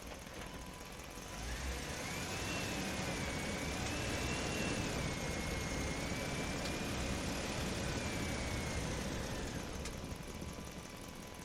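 A motor vehicle's engine running, with a high whine that sets in about a second and a half in, wavers slightly in pitch for about eight seconds, then fades.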